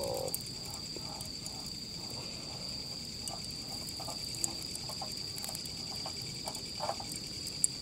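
Night insects trilling in one steady, unbroken high tone, with frogs giving scattered short, irregular calls.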